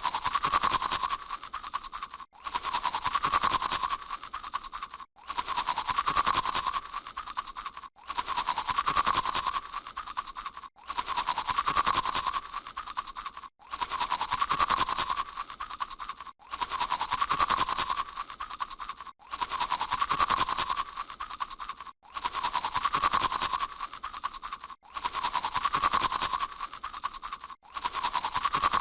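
A person brushing their teeth with a toothbrush, a wet scrubbing of bristles on teeth. The same short stretch of brushing repeats about every three seconds, with a brief break between repeats.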